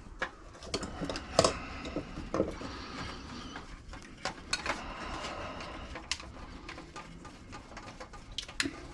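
Scattered clicks and clinks of small electronic scrap parts, such as switches and boards, being handled and tossed while they are broken down.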